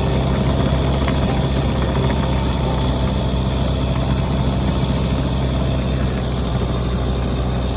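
Tucker 1544 Sno-Cat's Isuzu 4BD1T turbo diesel running at a steady, unchanging speed, a loud low drone.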